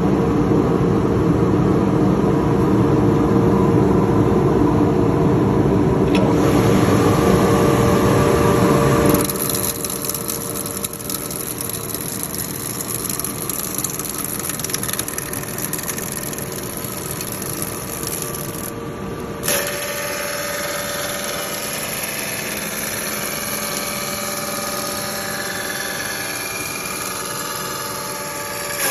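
Woodworking machinery running steadily, in three sections that change abruptly about nine and nineteen seconds in: a loud, low-heavy run first, then a quieter, brighter run with a few steady tones.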